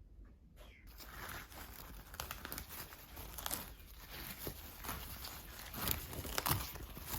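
Crinkling and rustling of something being handled, made up of many short crackling strokes with a couple of louder taps near the end.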